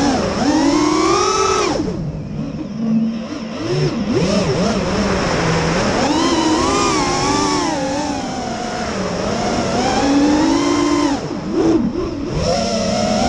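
FPV quadcopter's motors and propellers whining, the pitch gliding up and down with the throttle. The whine drops away briefly about two seconds in and again about eleven seconds in, where the throttle is chopped for a dive, then climbs back as power comes on again.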